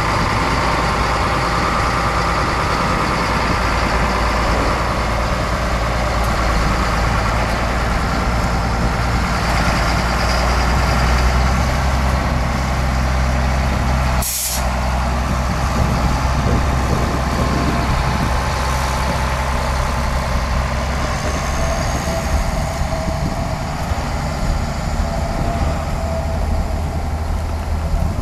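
A large engine or machinery running steadily with a deep, constant drone. A short sharp click comes about halfway through, after which the drone is a little quieter.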